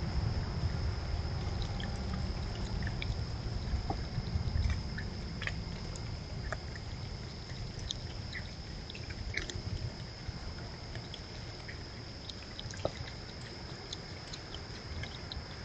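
Scattered small clicks and crackles of a skunk and a raccoon foraging through birdseed on the ground, over a steady low rumble and a thin steady high whine.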